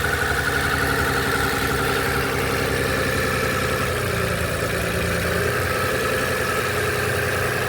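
Six-cylinder car engine idling steadily, run at idle to check for a misfire after the spark plugs were swapped between cylinders.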